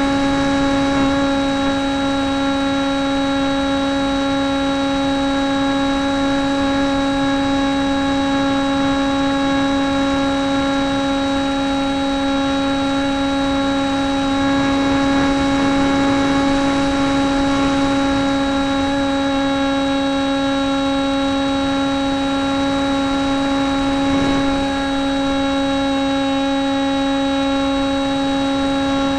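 Radio-controlled model Draken's motor and propeller running at a steady, unchanging pitch throughout the flight, a steady whine with air rush, heard from a camera mounted on the airframe.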